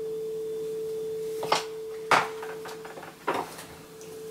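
Ceramic bowls and a spoon knocking on a kitchen worktop, three short knocks about one and a half, two and three and a half seconds in, the second loudest, over a steady single-pitched hum.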